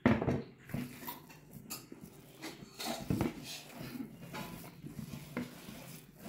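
A hand kneading and squeezing a soft, ground chicken-and-lentil kebab mixture with cornflour in a plastic bowl: irregular soft squelches and rustles with small knocks of the bowl. A sharp knock comes right at the start.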